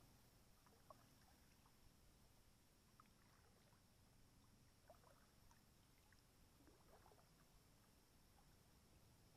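Near silence: a faint steady hiss with a few soft ticks of water dripping or lapping, and a short cluster of them near the end.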